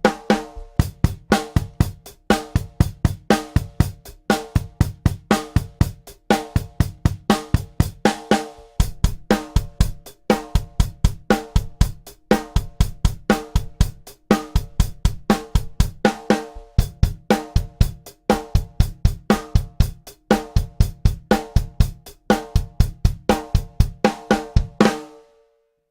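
Drum kit playing a steady groove of kick drum, snare and hi-hat, picked up on a Shure kick drum microphone with no EQ or processing. The groove stops near the end and the kit rings out briefly.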